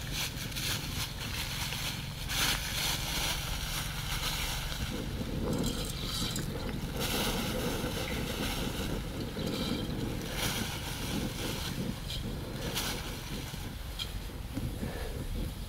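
Steady wind rumble on the microphone, with irregular rustling and crackling over it.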